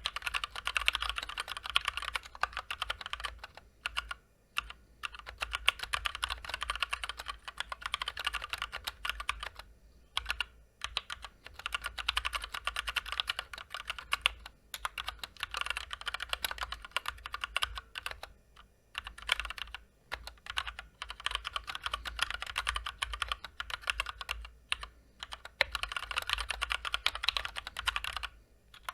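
Fast continuous typing on a Drop Ctrl high-profile mechanical keyboard with Gateron Clear linear switches and PBT double-shot keycaps, unlubed stock switches and stabilizers: dense runs of keystroke clicks broken by brief pauses.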